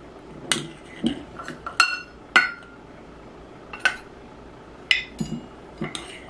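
Metal spoon clinking against a glass jar and a stainless steel measuring cup while scooping flour: a series of sharp, ringing clinks at uneven intervals, about seven in all.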